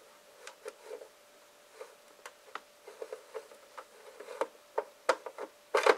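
Long LEGO plates sliding through slots in a LEGO box: a run of irregular light plastic clicks and ticks, sparse at first and coming faster and louder near the end.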